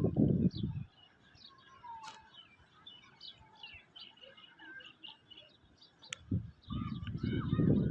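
Many small birds chirping and twittering throughout. Gusts of wind rumble in the first second and again from about six seconds in, louder than the birds.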